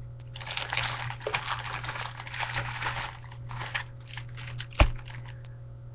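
Rustling and crinkling as bundles of body-wave hair weave are taken out and handled close to the webcam microphone, with one sharp knock a little before the five-second mark.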